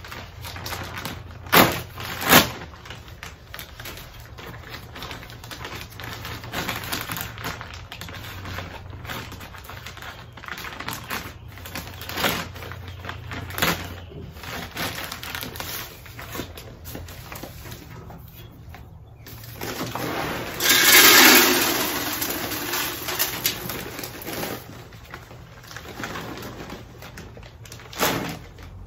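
A plastic bag of wood pellets being handled and poured into a pellet grill's hopper: rustling and scattered clicks, with a louder rush of noise lasting about a second and a half about two-thirds of the way in.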